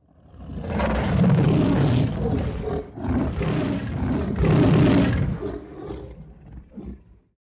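Lion roaring in the manner of the MGM studio-logo lion: three long roars, then a few shorter grunts that fade out near the end.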